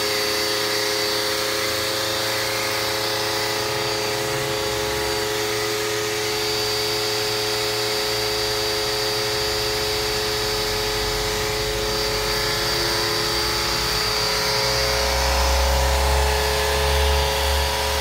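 A small Wap Ágil electric pressure washer runs steadily with a constant whining hum, while its snow foam lance, set to plain water for rinsing, sprays a hissing jet onto the car. A low rumble swells briefly about fifteen seconds in.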